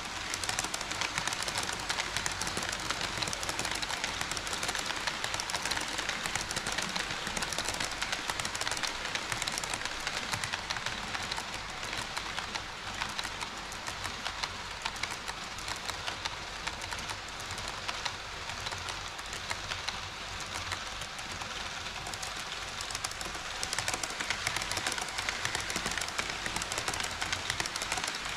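HO-scale model train running on KATO Unitrack: a steady rattling clatter of small metal wheels on the rails, full of fine rapid clicks. It eases off a little in the middle and grows louder again near the end.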